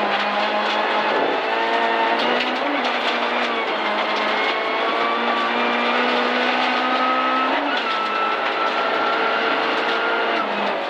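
Rally car's engine at full throttle, heard from inside the cabin, pulling hard through the gears on a gravel road. The revs climb and drop back at upshifts, a couple of times in the first three seconds and again just before the end, over a constant rush of gravel and road noise.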